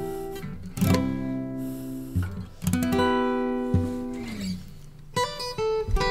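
Background music with no singing: guitar chords struck three times, each left to ring and fade.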